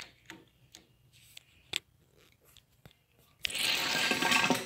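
Small die-cast toy car rolling down an orange plastic toy race track, a steady rattling roll lasting about a second near the end, after a few light clicks of handling.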